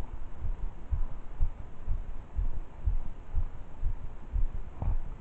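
Regular low, muffled thuds, about two a second, picked up by a first-person camera's microphone: handling or movement bumps rather than any sound from the pond.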